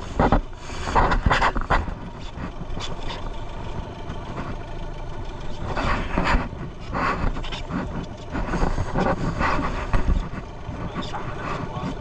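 Small motorboat's engine running, with wind buffeting the microphone and short bursts of indistinct voices.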